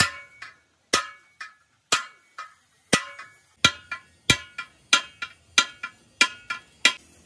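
Hammer striking a chisel held against the edge of a steel road-roller wheel rim: about ten ringing metal blows, each followed by a lighter rebound tap, about one a second at first and coming faster in the second half.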